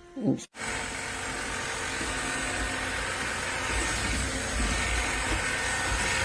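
Cordless stick vacuum running steadily at full power, a continuous rushing hum with a faint whine; it starts abruptly about half a second in.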